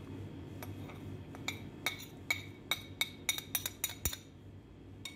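A metal spoon clinking against a ceramic plate as spices are pushed off it into a bowl: a quickening run of about a dozen sharp taps with a short ring, over a steady low hum.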